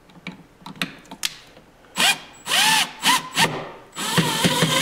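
Cordless drill/driver driving Phillips screws into the control panel's cover plate, in several short spurts from about halfway in, its pitch rising and falling with each pull of the trigger. A few light clicks of handling come before it.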